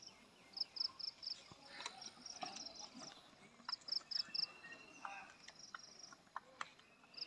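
Faint outdoor ambience of high-pitched chirping from small wildlife, in quick runs of three or four chirps that repeat every second or so, with a few scattered sharp clicks.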